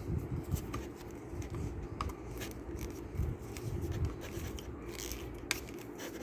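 Washing-machine inlet hose coupling being screwed onto the threaded outlet of a two-way Y hose splitter: faint, irregular scraping, rubbing and small clicks of the fittings being handled and turned.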